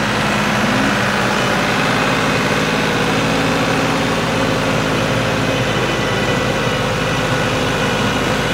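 New Holland 5500 tractor's diesel engine running steadily under load, pulling a Maschio super seeder whose rotor churns through the straw stubble and soil.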